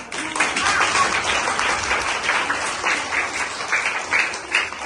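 Applause: many hands clapping together.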